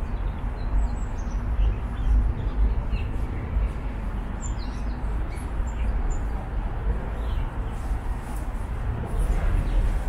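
Small birds chirping here and there among the trees, over a steady low rumble.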